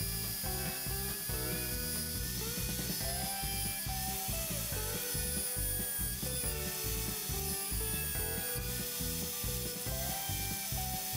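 Belt sander running steadily while a steel kiridashi blank is pressed against the moving belt, grinding in the blade's bevel.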